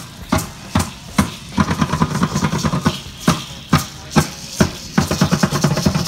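Drumming for an Aztec dance: a steady drum beat of about two to three strokes a second, with rattling shaken along with it that grows denser near the end.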